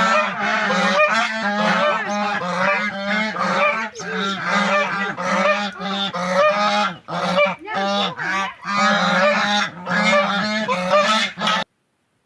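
A flock of swans honking, many calls overlapping continuously; the sound cuts off abruptly near the end.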